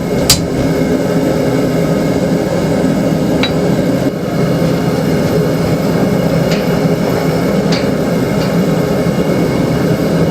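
A single hammer blow on hot steel on the anvil right at the start, then a steady loud mechanical roar from the running forge, with a few faint metallic clinks.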